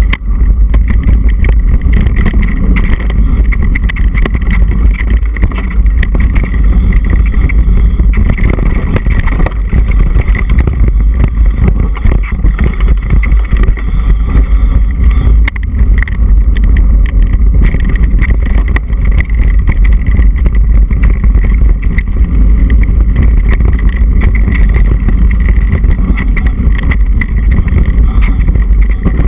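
Wind rush and rumble on a mountain-bike-mounted action camera's microphone during a fast descent of a dirt trail. It is loud and continuous, with constant small knocks and rattles from the bike and mount bouncing over the rough ground.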